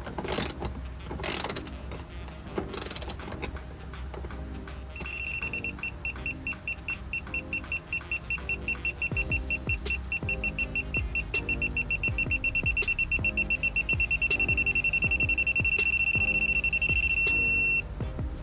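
Ratchet clicking as a bolt is run down, then from about five seconds in a digital torque wrench beeping: high beeps that quicken and grow louder, merging into a steady tone as the bolt reaches its set torque of 24 foot-pounds, cutting off suddenly near the end.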